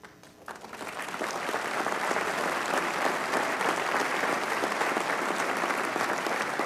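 Large audience applauding. The clapping starts about half a second in, swells over the next second and then holds steady.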